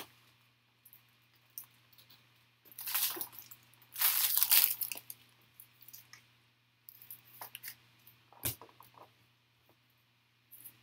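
Plastic packaging of 300-point top loaders being crinkled and torn open in two loud rustling bursts, followed by light clicks and handling rustles and one sharp tap.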